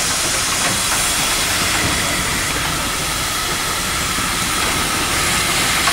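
Steam hissing steadily from the cylinder drain cocks of steam locomotive 433.002 as it creeps forward.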